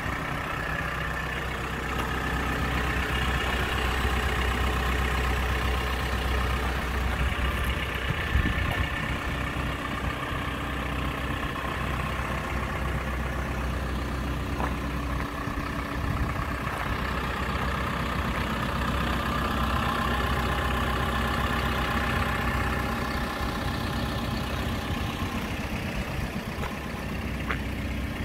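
Diesel engine of a JCB JS210 LC tracked excavator idling steadily.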